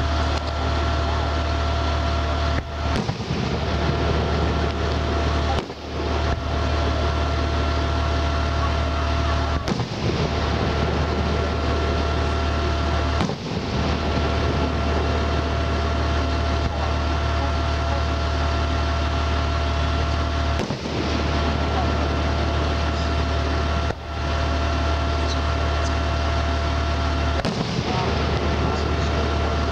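Aerial fireworks shells bursting with sharp bangs every few seconds, over a steady low mechanical hum.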